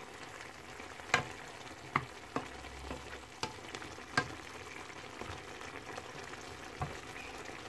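Wooden spatula stirring chicken wings and pork pieces in a nonstick pan, giving a handful of light knocks against the pan over a steady low sizzle of the meat simmering in a little water.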